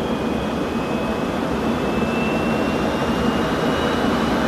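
Jet aircraft in flight: a steady rush of jet engine noise with a thin whine that slowly rises in pitch.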